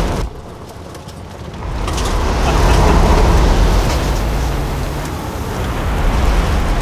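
Ford Bronco Badlands' twin-turbo V6 driven hard over sand in the open, doorless and roofless cabin, its engine and tyre noise dipping for the first second or so, then building and staying loud.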